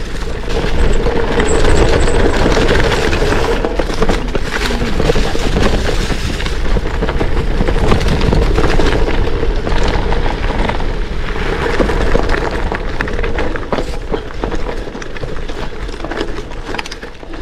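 Kona Rove LTD gravel bike rolling over a rough gravel track on 650b×43c Panaracer GravelKing tyres: continuous tyre noise on loose stones with frequent knocks and rattles, over a deep low rumble.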